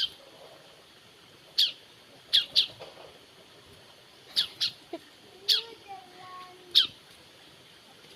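A caged bird giving short, sharp chirps, each a quick downward sweep. There are about eight at irregular intervals, some in quick pairs.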